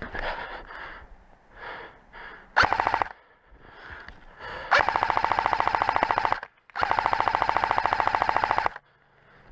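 Airsoft rifle firing on full auto: a short burst about two and a half seconds in, then two long bursts of nearly two seconds each, every shot a rapid, even rattle.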